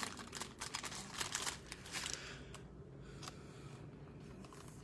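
Crinkling plastic and light clicks as a trading card is slid into a protective plastic sleeve. Busiest for the first two seconds or so, then only a few faint clicks.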